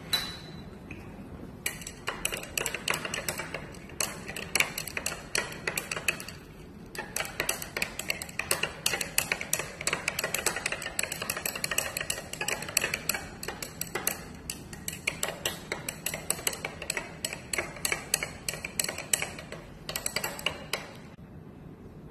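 Glass stirring rod clinking rapidly against the inside of a 100 ml glass beaker as lion's mane extract powder is stirred into water to dissolve it. The clinking pauses briefly twice and stops near the end.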